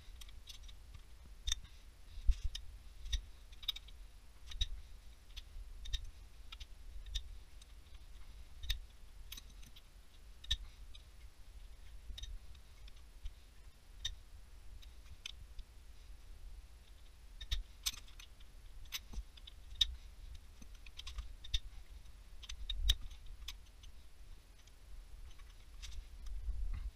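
Irregular, quick clicks and metallic clinks of a ratchet and socket wrench undoing connecting-rod nuts and main bearing bolts on a diesel engine block, in sped-up footage.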